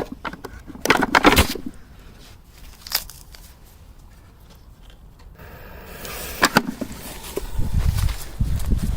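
Small firework going off: a sharp crack, then a quick cluster of cracks about a second in. Later a hiss builds and ends in another sharp crack, followed by low rumbling.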